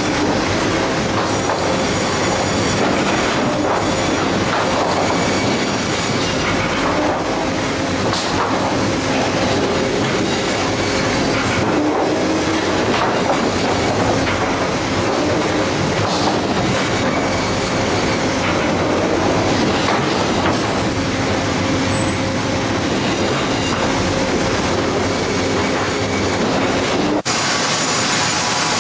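Sawmill machinery running steadily and loud: chain transfer conveyors carrying sawn boards, a dense metallic clatter with a few faint steady tones held through it. Near the end the sound changes abruptly to another part of the mill's machinery.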